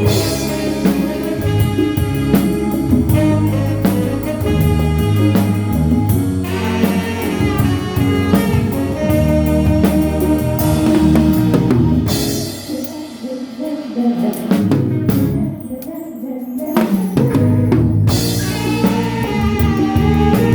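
A live band playing a song with a drum kit, bass and other instruments, and a voice singing. About 13 seconds in the band thins out and quietens for a few seconds, then comes back in full near the end.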